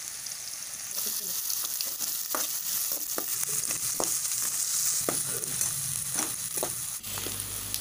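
Sliced onions, ginger and garlic sizzling in hot oil in a pan, stirred with a perforated steel skimmer. The skimmer scrapes and taps against the pan every half second to a second over the steady hiss of the frying.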